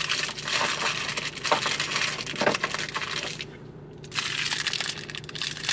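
Crinkling and crackling of plastic wrappers and loose trash being handled and gathered up, with a short pause a little past halfway.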